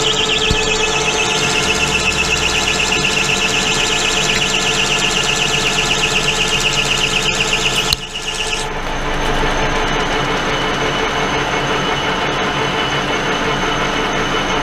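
Pratt & Whitney Model B metal lathe running, with a loud high squeal pulsing rapidly as the tool cuts stainless steel. The squeal stops abruptly about eight seconds in, and the lathe's drive keeps running steadily.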